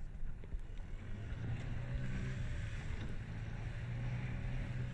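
Outboard motor driving an inflatable dinghy across choppy water, a steady drone that comes in clearly about a second in, over wind and rushing water.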